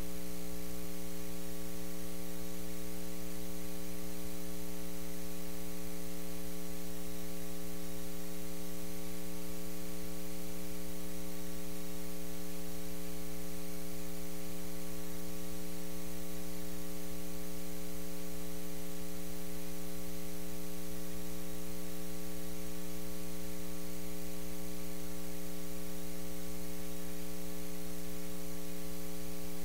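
Steady electrical mains hum and buzz, a stack of unchanging overtones over a constant hiss, with no voices coming through.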